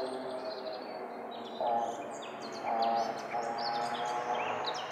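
Birds chirping and singing in quick short notes. A low steady hum with overtones comes in twice, about a second and a half in and again near three seconds, and is the loudest thing heard.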